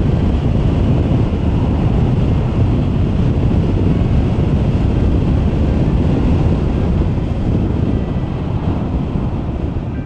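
Steady, loud wind noise at a rider's ear from a microphone inside a motorcycle helmet, at about 55 mph behind a Piaggio flyscreen on a Vespa GTS 300 scooter, heavy in the low rumble. At this speed the flyscreen setup measures about 74 to 78 dB at the ear.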